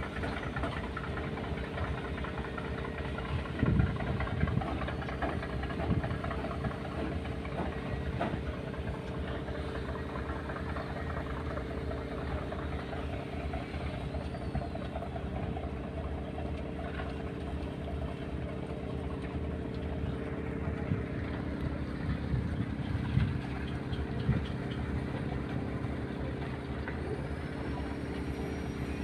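Fishing boat's diesel engine running at a steady low speed, a constant drone with a few short louder knocks along the way.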